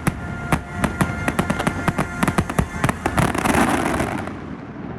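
Fireworks show: sharp bangs and crackling bursts that come faster after about a second and a half and build into a dense crackle, over the show's music, then fading away near the end.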